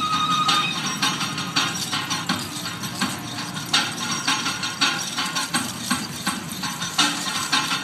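Irregular metallic clinking and jingling over a steady low background noise.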